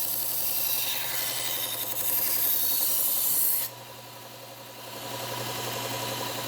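Knife blade ground against the running abrasive belt of a Bucktool slow-speed bench belt sander: a steady hissing grind that cuts off suddenly a little past halfway. After that only the sander's motor hum carries on.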